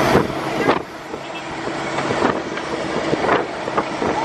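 A vehicle engine running steadily, a low hum under a broad rushing noise, which drops for a moment about a second in.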